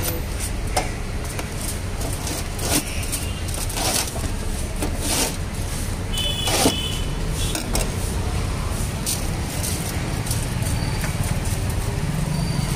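A steady low rumble of street traffic, with scattered sharp clicks and scrapes as a metal pizza wheel cutter rolls through baked crust and knocks against the cardboard box and steel counter.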